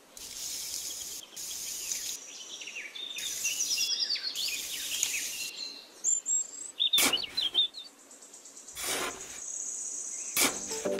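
Birds chirping over a steady high insect buzz, with a few short sharp knocks in the second half.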